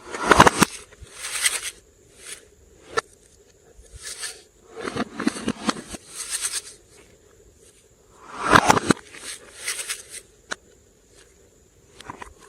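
Slime being squished and worked by hand: irregular sticky squelching and crackling bursts with sharp clicks and pops between them, loudest about half a second in and again about two-thirds of the way through.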